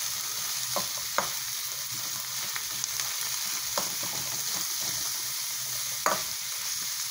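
Chopped onion and carrot sizzling in hot oil in a metal wok as a metal spoon stirs them. There are a few sharp clinks of the spoon against the pan, the loudest about six seconds in.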